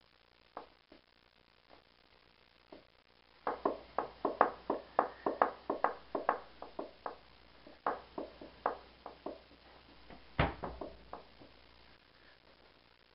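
A quick, irregular series of sharp taps, about three or four a second, starting about three seconds in and stopping near the end, with one louder knock shortly before they stop.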